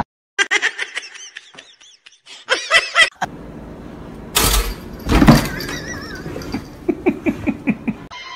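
People laughing over a string of short pet clips, with two loud sudden sounds near the middle and a run of quick 'ha-ha-ha' pulses near the end.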